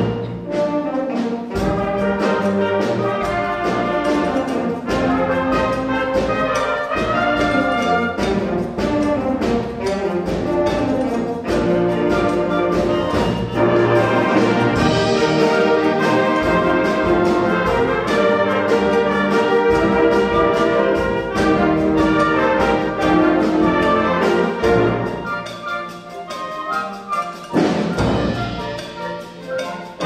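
School symphonic band playing a piece: brass and woodwinds with percussion strokes. It softens briefly near the end, then comes back with a loud accent.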